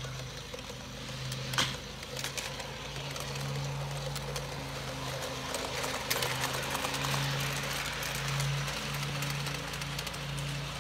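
American Flyer 4644 standard gauge electric toy locomotive running with its train on three-rail track: a steady motor hum that swells and fades, with the rattle of wheels on the rails. There are sharp clicks about one and a half seconds in and again about six seconds in.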